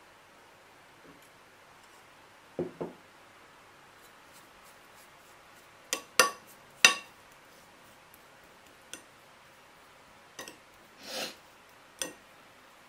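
Metal spoon clinking and scraping against a plate of raw salmon steaks: scattered sharp clicks, a few soft knocks early, the loudest clinks about six to seven seconds in, and a short scrape near the end.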